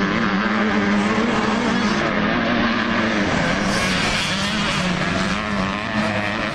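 Motocross motorcycle engines running hard as riders race round a dirt track, the engine pitch rising and falling with the throttle.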